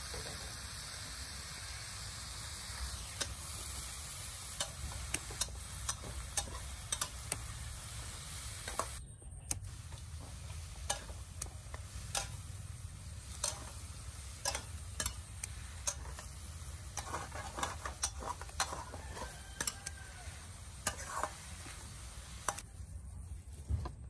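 Hands picking holy basil from potted plants: leaves rustling and stems snapping with many sharp, irregular clicks over a steady hiss that thins out about nine seconds in.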